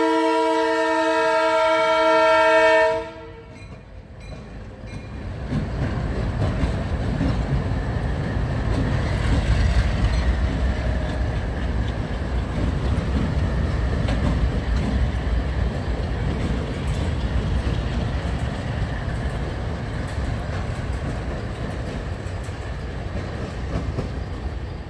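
Diesel locomotive horn sounding a steady chord that cuts off about three seconds in, as the light engine move reaches the level crossing. Then the locomotives pass over the crossing, engines and wheels on rail making a low rumble that builds to its loudest around ten seconds in and slowly fades.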